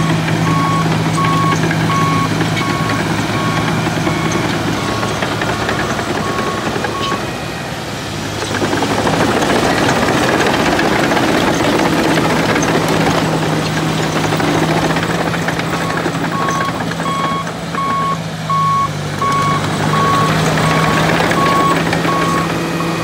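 Cat D5M bulldozer's diesel engine running steadily while its backup alarm beeps about one and a half times a second as it reverses. For several seconds in the middle the beeping stops and a louder, rougher rush of machine noise takes over, before the beeping returns.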